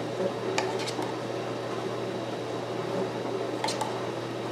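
Plastic fork dabbing beaten egg wash onto soft pretzel dough and dipping into a paper cup, with a few light clicks, twice in the first second and once near the end, over a steady background hum.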